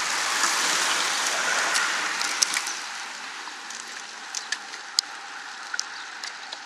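A pack of road bicycles passing close, its tyres and freewheels making an even hiss that fades as the riders move away, with a few sharp clicks.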